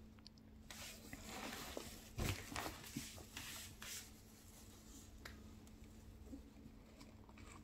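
A backpack being handled and turned over by hand: soft rustling and brushing noises with a few light knocks, busiest in the first half and thinning out after about four seconds.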